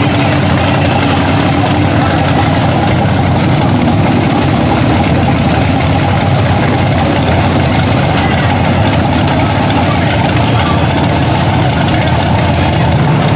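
Big engine of a lifted Chevy S-10 mud truck on tractor tires, idling steadily and loudly with no revving.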